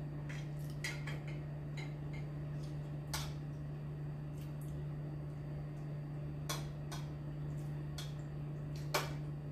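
Spoon and fork clinking against a plate and a glass bowl while eating, in scattered single clinks, the loudest about three seconds in and near the end, over a steady low hum.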